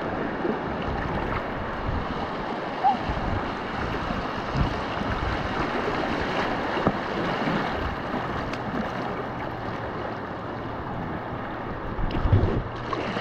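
River water lapping and rippling around a floating inner tube, with wind rumbling on the camera microphone.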